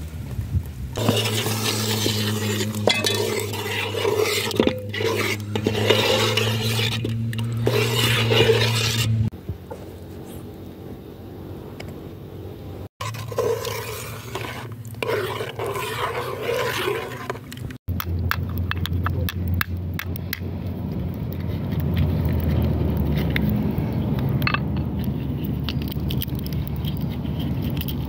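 Cooking sounds from an aluminium pot on an outdoor fire: liquid poured in and a metal spoon stirring, scraping and clinking against the pot, with a steady low hum under the first part. Later comes a series of sharp clicks.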